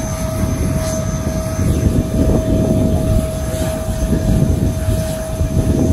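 Airbus A350-1000's Rolls-Royce Trent XWB-97 turbofans running at taxi power as the airliner rolls past: a steady low rumble with a held whine over it.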